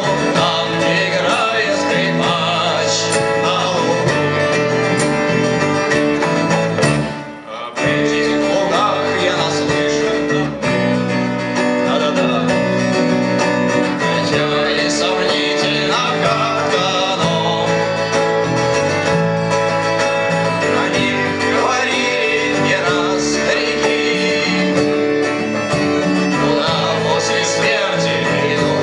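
A band playing a song with guitar to the fore, with a brief drop in the music about seven seconds in.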